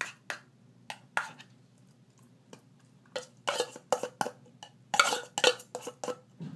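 Spoon clinking and scraping against a container while handling wet cat food: a run of short, sharp irregular clicks, sparse at first and busier in the second half.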